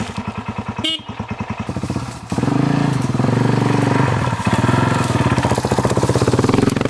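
Adventure motorcycle engine chugging at low revs under load, then opened up about two seconds in and held at higher revs as the bike is ridden out. A short sharp click about a second in.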